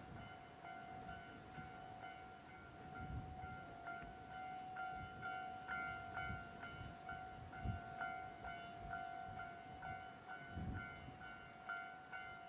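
Railway level-crossing warning bell ringing in an even repeating pattern, about two and a half strikes a second, signalling an approaching train. A few low rumbles come and go under it.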